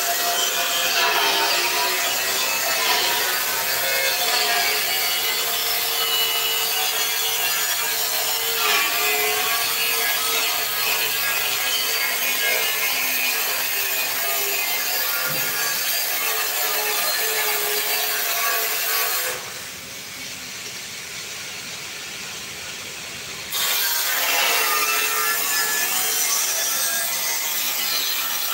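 Angle grinder cutting into a steel drum: a continuous, loud grinding with the motor's pitch wavering under load. The cutting pauses for about four seconds past the middle, and the grinder starts up again.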